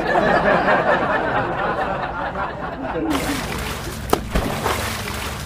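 Muffled snickering laughter, then from about three seconds in, water poured from a mug over a person's head and splashing, with one sharp knock about a second later.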